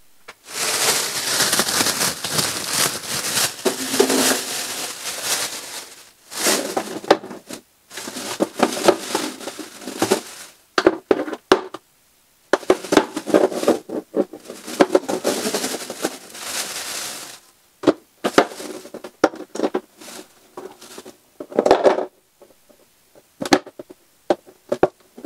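Thin plastic grocery bag crinkling and rustling in bursts of a few seconds as eggs are taken out of it, with scattered light clicks and knocks of eggs and a plastic egg tray being handled, mostly in the second half.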